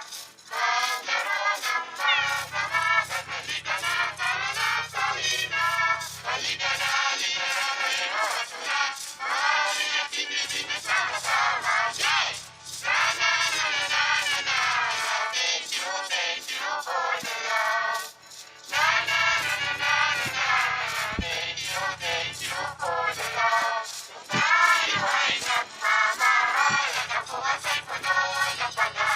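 Children's cartoon ending song, voices singing together over music. The audio is warped by a pitch-shifting 'G Major' edit effect.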